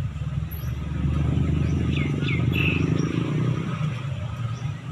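Street traffic rumble with a vehicle engine passing close by, loudest in the middle and fading after. A few short, falling bird chirps about two seconds in.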